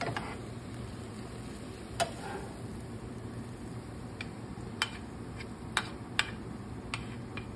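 A wooden spatula and metal spoon stirring and turning a vegetable-and-ham filling in a nonstick skillet, with sharp light clicks of the utensils against the pan about once a second.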